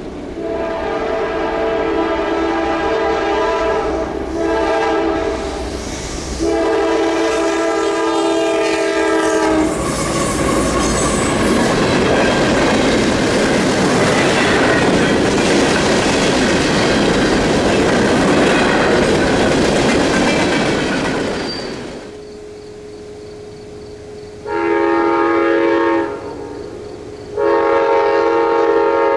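Freight locomotive horn sounding several long blasts for the crossing, then the locomotives and cars rushing past with wheel clatter on the rails. Near the end, two more shorter horn blasts.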